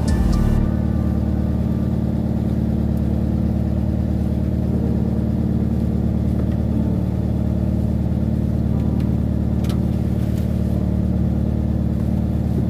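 A fishing boat's engine running steadily, a constant low drone, with a couple of faint clicks about ten seconds in.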